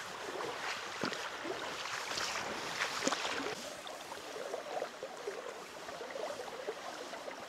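Shallow stream water running, with irregular splashing and sloshing of feet wading through it.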